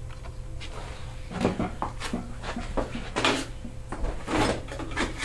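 Irregular light metal clicks and knocks as a carburetor and its throttle linkage are handled and fitted onto a small Tecumseh lawnmower engine, over a low steady hum.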